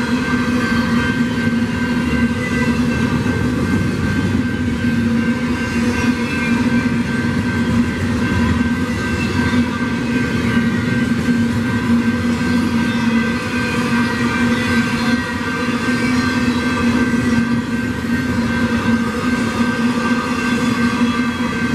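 Double-stack intermodal freight cars rolling past at speed, a steady rumble of wheels on rail with continuous steady tones held over it throughout.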